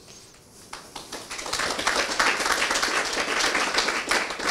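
Audience applauding: clapping from many hands starts about a second in, holds steady, and thins out near the end.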